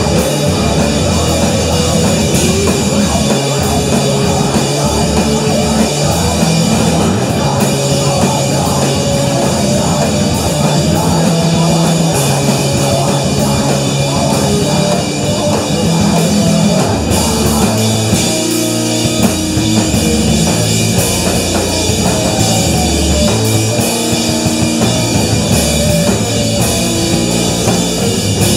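Live rock band playing loud: distorted electric guitar over a full drum kit.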